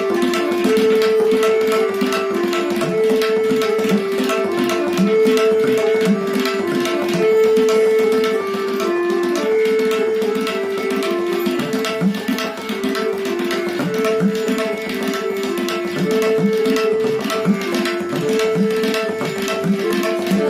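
Tabla solo: rapid strokes on the treble drum, with bass-drum strokes that glide up in pitch. Underneath runs a lehra, a short melody that repeats every four seconds or so.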